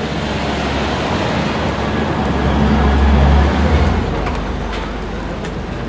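A car driving past close by on a cobblestone street: engine and tyre rumble that swells to a peak about three seconds in, then fades.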